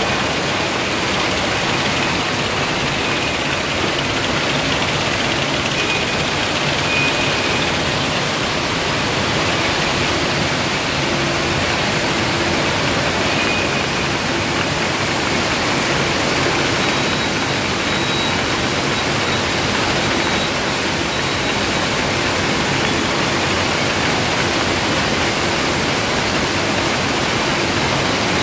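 Steady factory-floor noise of a can buffer conveyor line: slat chain conveyors running with cans packed together and sliding on the buffer table, an even wash of sound with a few faint steady machine tones.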